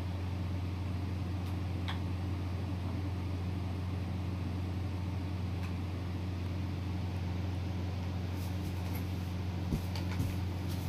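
Steady low mechanical hum, with a few faint clicks near the end.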